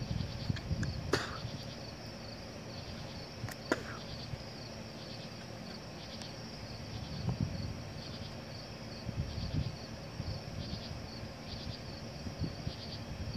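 Night chorus of crickets chirping steadily in quick pulses, with a few low rumbles in the background and two sharp clicks about one and four seconds in.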